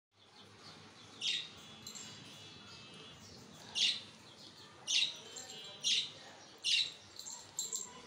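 Small pet parrot, a budgerigar, chirping: five short, loud, high calls spaced about a second apart, with softer chirps in between.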